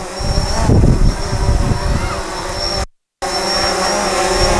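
DJI quadcopter drone flying overhead, its propellers giving a steady buzzing hum with a thin high whine. The sound cuts out completely for a moment about three seconds in.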